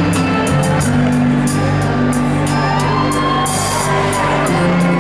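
Live band playing an instrumental interlude between songs in a large arena: held bass notes and chords under a regular cymbal tick, with whoops from the audience.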